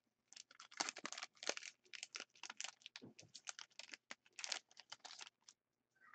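Hockey card pack wrapper crinkling and tearing as it is opened by hand, with the cards being slid out: a quick, uneven run of small crackles and clicks that stops about half a second before the end.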